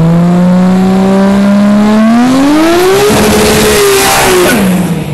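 Drag car's engine revved hard at the start line, with tyre smoke pouring off spinning rear wheels. The revs climb in two steps and hold high, with a rising hiss of tyre noise in the middle, then fall away near the end.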